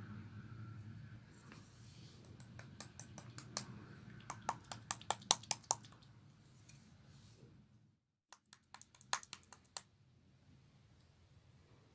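Clear slime being squeezed and pressed by hand, giving sharp, irregular clicks and pops from trapped air. The clicks come in two runs with a short break between them.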